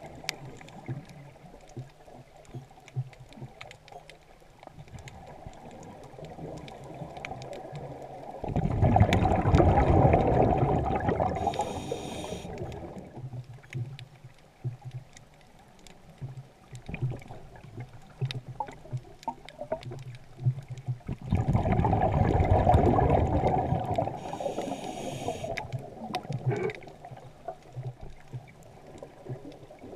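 Underwater sound of a scuba diver breathing: two loud gurgling rushes of exhaled bubbles from the regulator, each a few seconds long and about thirteen seconds apart, with faint ticking and crackling in between.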